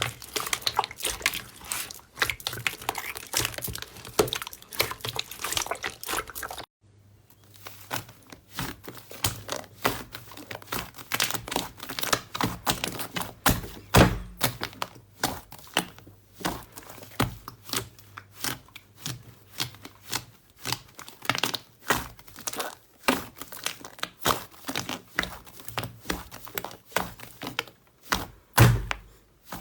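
Slime being squeezed and pressed by hand: dense, irregular crackling and popping clicks with a few louder thuds. A short pause comes about seven seconds in.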